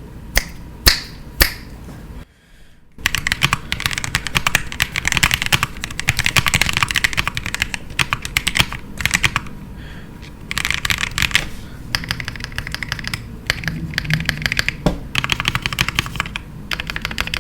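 Typing on a Dymium65 mechanical keyboard with Capybara linear switches and Durock V3 stabilizers: a few single key strikes, a short pause, then fast continuous typing broken by brief pauses.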